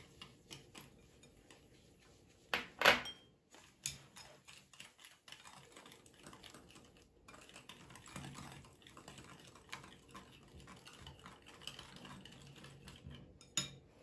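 Wire whisk beating eggs and sugar in a ceramic bowl, a quick run of light clicks and taps against the bowl. About three seconds in comes a louder knock as a small glass bowl is set down on the table.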